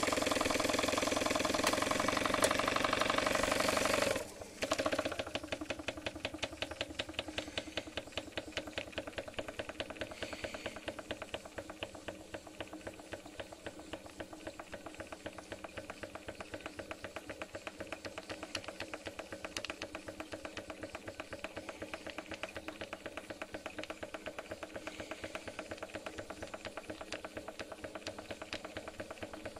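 Model steam engine running steadily, its exhaust and valve gear making a fast, even ticking beat. Over the first four seconds a louder steady rushing sound from the gas burner under its boiler plays, then cuts off abruptly.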